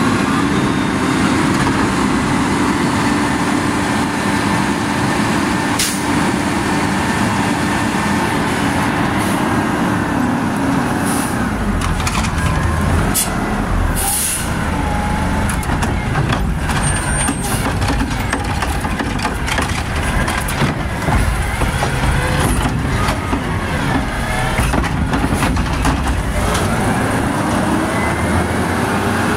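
Heil automated side-loader garbage truck's engine revved high and held steady while the hydraulic arm dumps a cart, dropping back about ten seconds in. Air hisses around the middle, and the engine revs climb again near the end.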